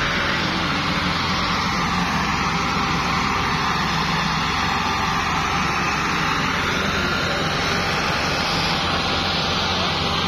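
Diesel engines of a Massey Ferguson 385 and a Fiat 640 tractor running hard together under heavy load, towing a stuck, loaded sugarcane trolley; a steady, unbroken engine drone.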